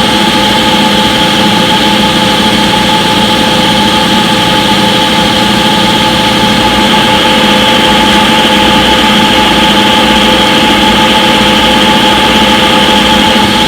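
Front-load washing machine in its spin cycle, the drum spinning at a steady high speed with an even whine and hum that hold constant throughout.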